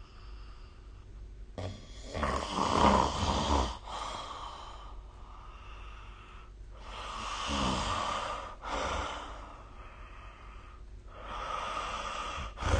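A sleeping person snoring: loud snores about two and about seven seconds in and again near the end, with quieter breaths between.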